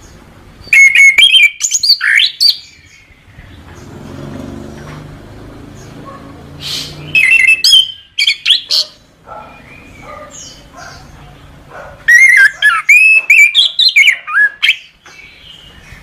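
Chestnut-capped thrush (anis kembang) singing: three bursts of quick, varied whistled phrases and trills, each one to three seconds long, with pauses between.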